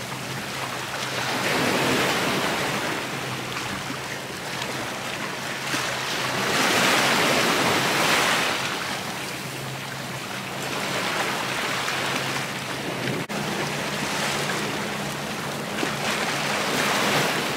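Small waves breaking and washing over the rocks of a jetty, the surf hiss swelling and fading every few seconds.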